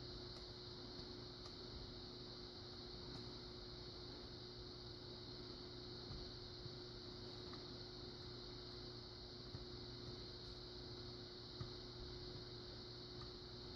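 Faint, scattered clicks of a lock pick probing the pins of a pin-in-pin lock, searching for the binding inner pins, over a steady low hum.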